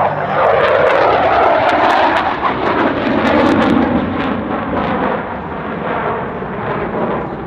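CF-18 Hornet's twin GE F404 turbofan engines in a loud pass, a jet roar whose pitch slides down as it goes by, then easing off slightly.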